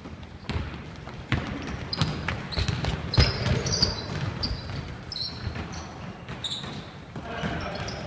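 A basketball bouncing on a hardwood gym floor as players run the court, with repeated thuds and several short, high sneaker squeaks.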